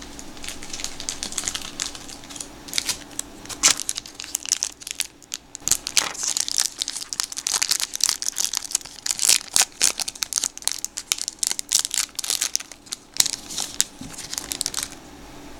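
Foil wrapper of a 1992 Donruss Series 2 baseball card pack being torn open and crumpled by hand: a dense run of crinkling and tearing crackles, with a short lull about five seconds in, that dies away near the end.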